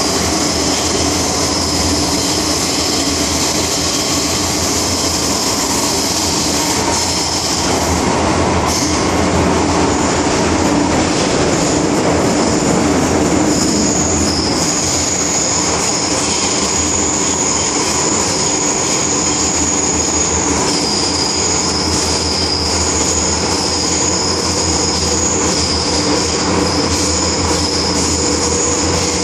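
Interior running noise of an MTR M-Train (Metro-Cammell electric multiple unit) travelling at speed: a steady rumble and hum with high-pitched wheel squeal that shifts in pitch several times. It swells slightly about a third of the way through.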